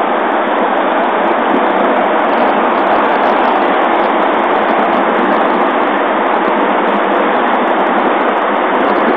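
Steady rolling noise of a large pack of skateboards, many urethane wheels running on asphalt, heard from high above the street.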